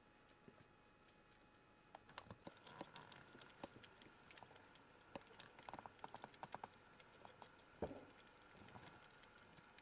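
Faint, irregular light clicking and scratching from a young Eurasian red squirrel moving about in its wire cage, starting about two seconds in.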